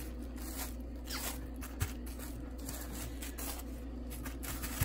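Hand pressing and rubbing a flounder fillet into dry fish-fry breading inside a plastic bag: soft crinkling of the plastic and gritty scraping of the coating, with one small knock about two seconds in. A faint steady low hum runs underneath.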